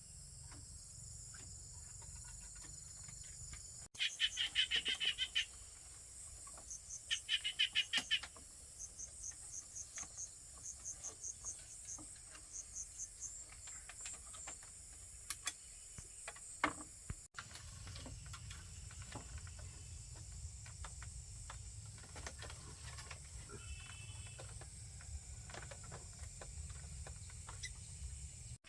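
Insects shrilling in a steady high drone. Two loud bursts of rapid pulsed chirping come about four and seven seconds in, followed by a run of short, evenly spaced high chirps.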